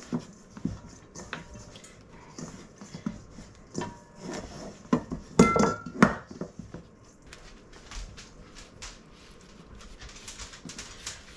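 Bread dough being kneaded by hand on a counter: irregular soft knocks and thumps, with a louder cluster about five to six seconds in.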